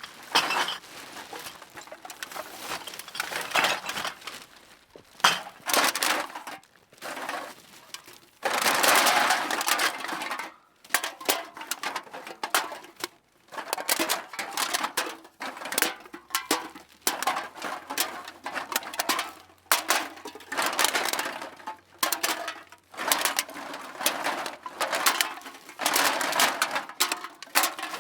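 Empty beer and soda cans being thrown into a bag, clattering and clinking against one another in irregular bursts, some louder and longer than others.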